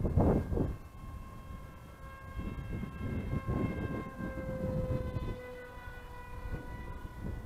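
Electric motor and propeller of a small RC plane whining in flight, a steady whine that drops slightly in pitch about five seconds in. Wind buffets the microphone at the start.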